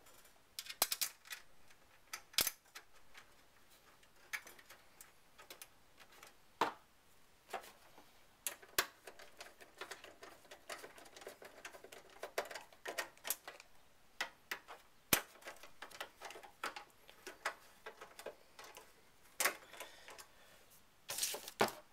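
Screws being driven with a hand screwdriver into a sheet-metal drive bracket in a computer case. Scattered light metallic clicks and ticks come in irregular clusters.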